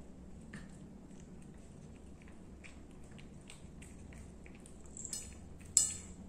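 A cat chewing and licking soft wet canned food, with many faint wet clicks and smacks. Near the end come two brief clinking rattles, the second the loudest.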